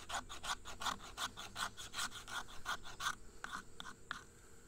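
Knife's squared 90-degree spine scraping fatwood into fine shavings, in quick, short strokes about four a second. About three seconds in, the strokes thin to a few fainter scrapes and stop.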